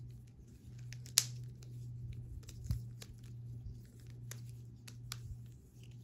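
NDK Arts Poni balisong trainer being flipped by hand: scattered sharp clicks and clacks as the handles and trainer blade knock together, the loudest about a second in. A steady low hum runs underneath.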